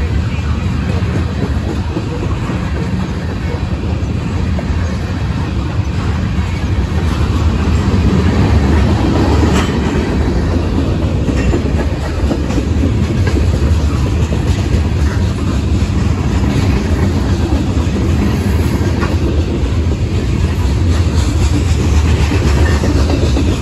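Freight train of covered hoppers and tank cars rolling past at close range: a steady low rumble of steel wheels on rail, with scattered clicks as the wheels pass over rail joints.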